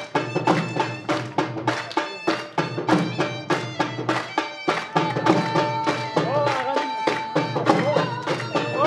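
Traditional dhamaal music: a drum beats a steady rhythm of about two to three strokes a second. About halfway through, a wind instrument comes in with a long held note and bending phrases.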